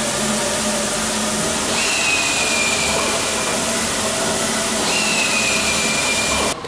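Workshop din of several pneumatic air tools running at once, with a high air-tool whine that sags slightly in pitch, heard twice.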